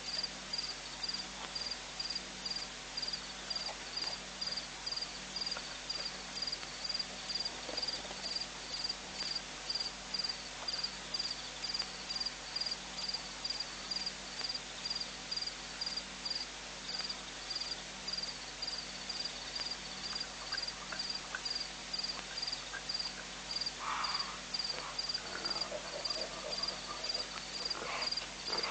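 A cricket chirping in a steady, even rhythm of about two high chirps a second. A few brief, lower, unidentified sounds come in near the end.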